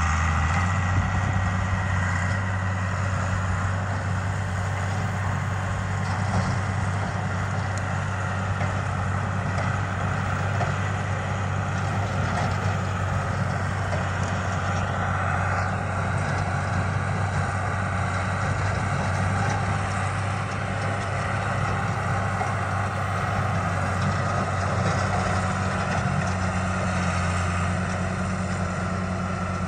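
John Deere tractor engine running steadily at a constant speed while driving a rotary cutter (bush hog) mowing brush.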